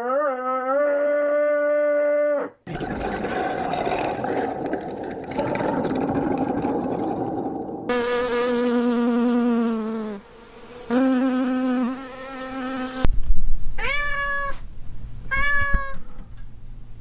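Several different farm animal calls in turn: a long, held low call, then a stretch of buzzing, two more long low calls, and a series of short rising-and-falling calls near the end.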